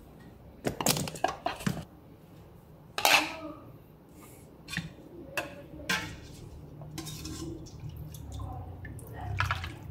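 Dishes and cutlery clattering: bursts of sharp clinks and knocks, a quick cluster about a second in and a single loud one about three seconds in, with scattered lighter clinks after.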